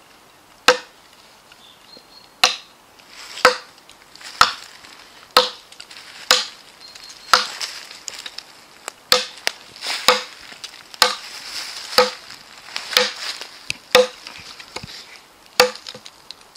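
An axe chopping into a log, one blow about every second, each a sharp knock into the wood.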